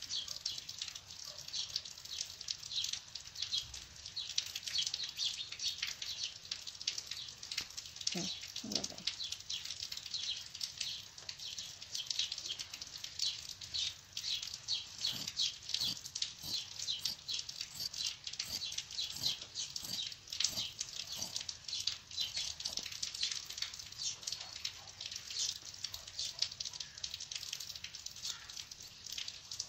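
Fabric rustling and crinkling as hands smooth, fold and measure a sheet of cloth, making a continuous run of fine, rapid crackles.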